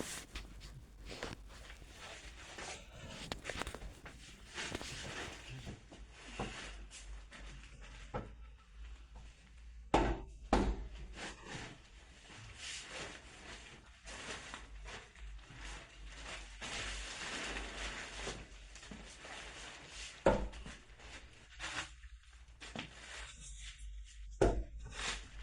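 Rustling with scattered knocks and thumps from a new bed and its mattress being handled and unwrapped, with a few louder thuds about ten seconds in, around twenty seconds, and near the end.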